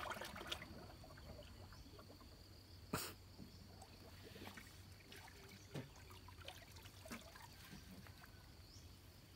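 Faint trickling and dripping water with small scattered knocks, and one sharper knock about three seconds in, as fishing gear is lifted out of the river into a wooden boat.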